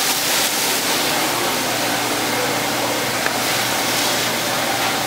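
Steady commercial-kitchen noise: beef patties sizzling on a flat-top griddle with the exhaust hood fan running, an even hiss over a faint hum. One small click about three seconds in.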